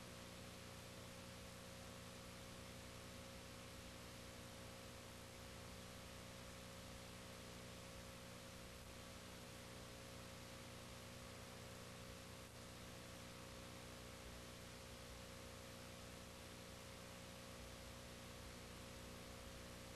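Near silence: a faint steady hum with hiss, and no other sound.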